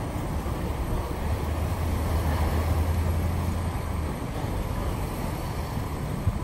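Low diesel engine rumble of demolition machinery working, swelling louder in the middle and easing off about four seconds in, over a steady background of city noise.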